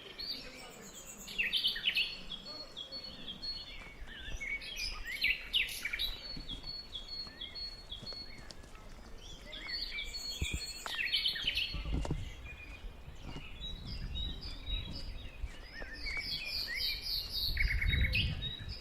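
Several wild songbirds singing and calling over one another, with trills and a repeated high note. Low rumbles come in twice, about twelve seconds in and near the end.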